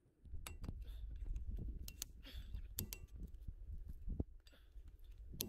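Sharp metallic clicks and taps of a screwdriver prying at a truck wheel hub's dust cap, a handful of irregularly spaced strikes over a low rumble.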